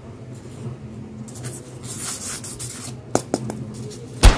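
Hands rubbing and handling white foam number cutouts on a tabletop, with two sharp clicks about three seconds in and a loud thump near the end.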